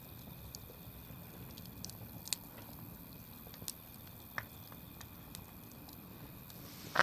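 Wood campfire burning, with a low steady rush from the flames and a few sharp crackles and pops from the burning wood, a second or more apart.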